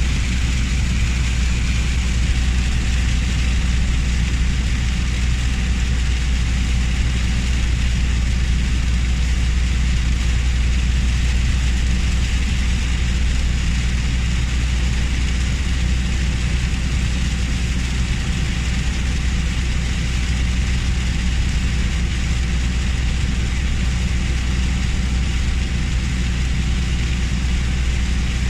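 Steady low rumble of a car, mixed with the even hiss of heavy rain.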